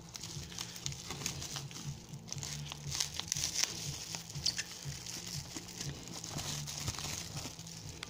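Bubble wrap crinkling and masking tape being peeled off it as a small wrapped item is unwrapped by hand: a dense run of small crackles, busiest about three to four and a half seconds in.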